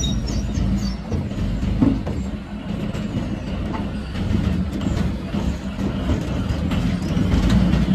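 Heavy military vehicle's engine running with a steady low rumble, with scattered metallic knocks and clatter.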